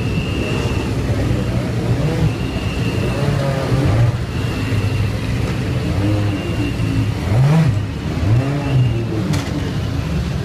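Several Formula 3 cars' two-litre four-cylinder racing engines idling together, with two quick revs rising and falling about three-quarters of the way through.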